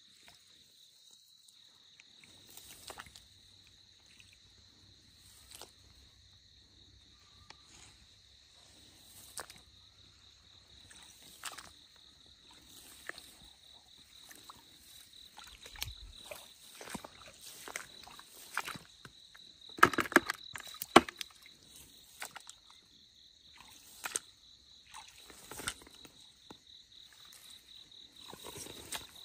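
Dry grass rustling and scattered knocks and scrapes as a metal rod probes a hole in muddy ground, with two loud knocks about two-thirds of the way through. A steady high insect drone runs underneath.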